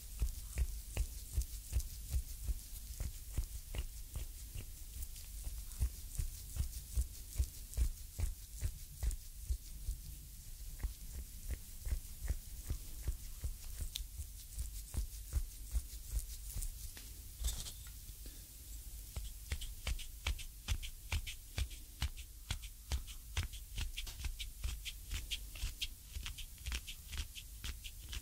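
Close binaural recording of a knuckle, and near the end a wooden reflexology stick, pressing and rubbing into an oiled sole: a rhythmic gori-gori grinding of about two strokes a second, with sharper crackly clicks from about two-thirds of the way through.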